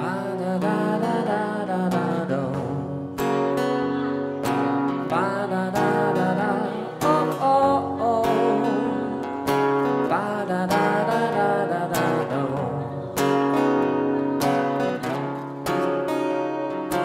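Live band music: a strummed acoustic guitar and a man singing, with a steady beat played on an electronic drum kit.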